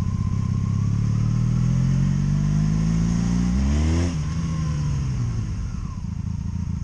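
2002 Honda Magna VF750C V4 engine pulling under throttle, its pitch climbing steadily. About four seconds in it revs up sharply, then drops off. The note then falls as the bike slows and settles into a lower steady running.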